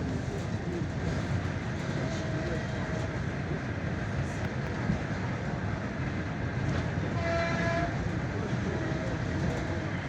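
ED4M electric train running through a station at speed, a steady loud rumble of wheels on the rails. About seven seconds in it sounds its horn for about a second.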